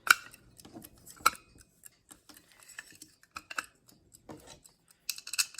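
Scattered sharp clicks and knocks as a Westclox alarm clock's movement is slotted and pressed into its plastic case, with a quick run of clicks near the end.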